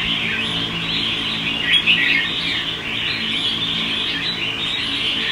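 Caged red-whiskered bulbuls chirping and chattering in a dense, continuous chorus, with a few louder calls about two seconds in.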